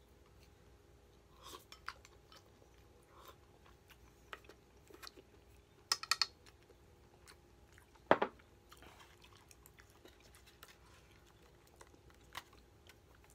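Chopsticks clicking against a metal pot and a ceramic bowl during a meal, with quiet chewing between. A quick run of clicks comes about six seconds in, and one sharp knock about eight seconds in.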